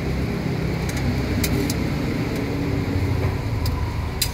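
Metal tongs and a wire strainer ladle clinking a few times against a stainless-steel broth pot, over a steady low rumble.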